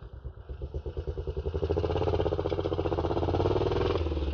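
Small dirt bike engine revving hard as the bike pulls away, getting louder over the first two seconds and then held at high revs. The sound changes abruptly near the end, as the bike wheelies up.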